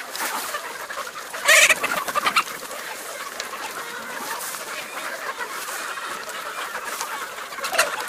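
A large flock of chickens and roosters clucking continuously, with a louder burst of squawking about one and a half seconds in.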